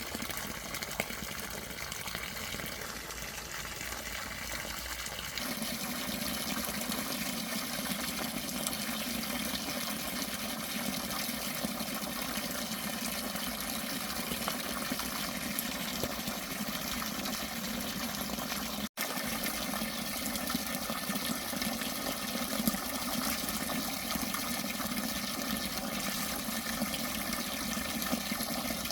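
Steady rush of running water, changing in tone about five seconds in and briefly cut off near the middle.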